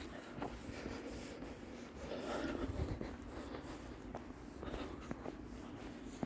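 Footsteps crunching and scraping in snow, small irregular steps, a little louder about two seconds in.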